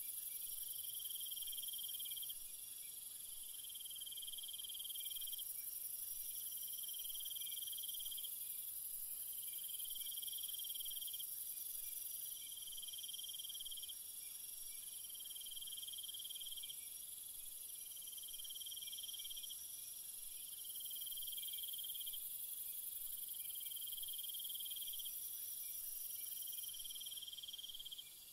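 Faint insect chorus, crickets trilling steadily, with one trill stopping and starting every couple of seconds.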